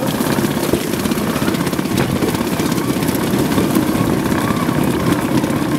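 Bamboo train (norry) running along the rails: its small engine drives steadily with a fast, even chatter, and a few sharp knocks come from the wheels on the old track.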